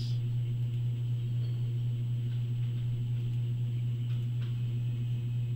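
Steady low electrical hum with no speech, and a few faint clicks.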